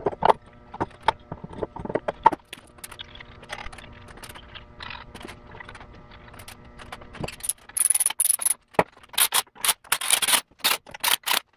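A metal exhaust manifold scraping and knocking against the boxer engine's cylinder heads as it is set in place. From about two thirds of the way in come runs of sharp metallic clicks from a hand tool as the manifold bolts are started.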